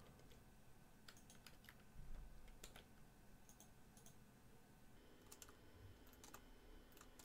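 Faint computer keyboard keystrokes and clicks, scattered and coming in small groups of two or three, over quiet room tone.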